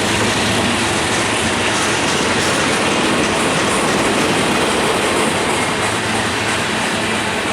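Freight train cars rolling past close by: a loud, steady rush of steel wheels on the rails, with no horn sounding.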